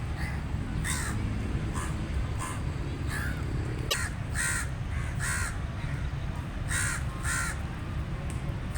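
A crow cawing: about ten short, harsh calls at uneven intervals, several in quick pairs around the middle, over a steady low rumble.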